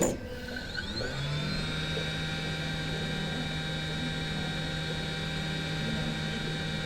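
A click, then a hot-air gun's fan motor spins up over about a second and runs with a steady whirring hum.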